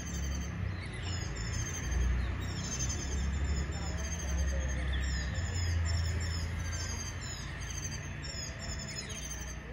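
Small birds chirping over and over in short high notes, over a steady low rumble.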